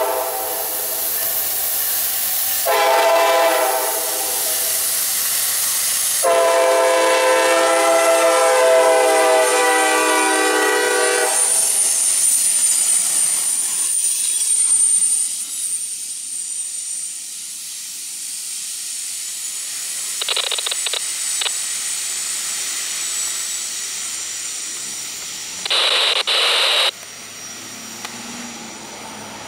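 Locomotive air horn on an EMD GP40WH-2 sounding the grade-crossing signal: the end of a long blast, a short blast, then a final long blast of several steady tones. Then the train's passenger cars roll past over the crossing with a steady rumble. Near the end a loud burst of noise lasts about a second.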